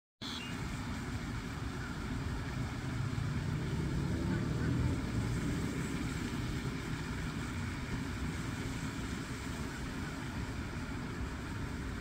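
Low, steady outdoor rumble that swells for a couple of seconds about three seconds in, then settles back.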